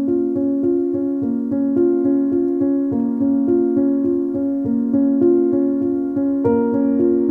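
Background music: a keyboard playing a steady pattern of repeated notes, about three a second, with a higher note coming in near the end.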